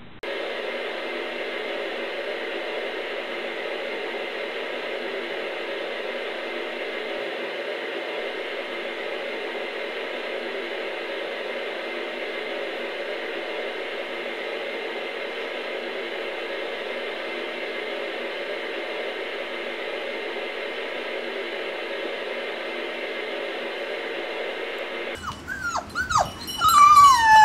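A steady, even background noise with no change for most of the stretch. Near the end, Siberian husky puppies start whimpering in short, falling, high cries, louder than the noise.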